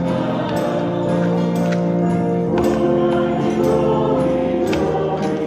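Music: a song sung by a group of voices with instrumental accompaniment and a steady percussion beat.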